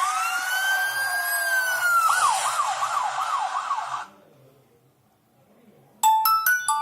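Nokia N92 ringtone played through the phone's loudspeaker: siren-like wails, one long rising-and-falling glide, then quick up-and-down wails over a hiss, cutting off about four seconds in. About two seconds later the next ringtone starts with a quick run of bell-like mallet notes.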